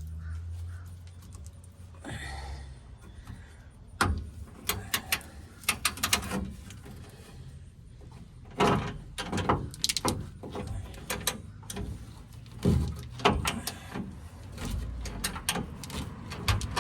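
Vise grips clicking and clanking against a rusted nut under the truck's frame, a run of irregular sharp metal knocks in clusters as the grips are clamped on and slip off the nut.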